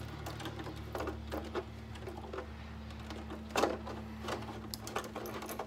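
Hand screwdriver turning small screws into a plastic RC car body: scattered light clicks and scrapes, with one louder knock about three and a half seconds in, over a steady low hum.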